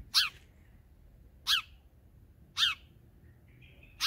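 Male house sparrow giving four short, sharp chirps, roughly one every second and a bit, each a quick down-and-up sweep.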